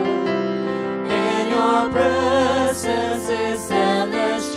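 Voices singing a slow Christian worship song over sustained instrumental accompaniment, holding long notes with vibrato.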